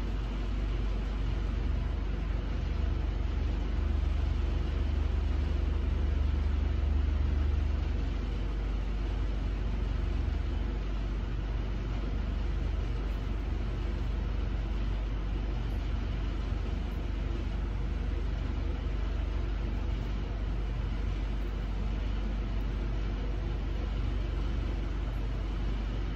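Steady low rumble of an idling truck engine, with a constant haze of noise over it; the rumble swells for several seconds early on and then settles back.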